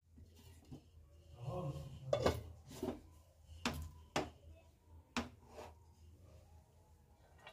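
A glass lid is lifted off a pot of cooked yellow rice, then a wooden spatula turns the rice over, clacking sharply against the metal pot about six times.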